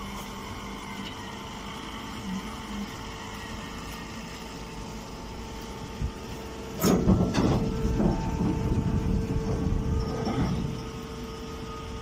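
Steady hum of a vertical hydraulic straw baler's electric motor and pump running. A sharp knock about six seconds in is followed by about four seconds of louder rustling and clattering from straw and a woven sack being handled at the bale chamber, after which the hum carries on alone.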